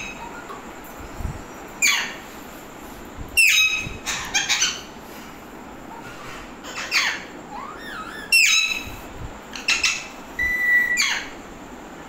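Alexandrine parakeets giving loud, harsh screeching calls in short bouts, about six in all, with a brief steady whistled note near the end.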